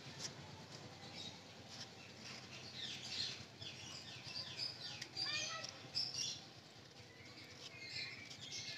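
Small birds chirping, faintly and off and on, each call a quick run of falling chirps, over a low steady hum.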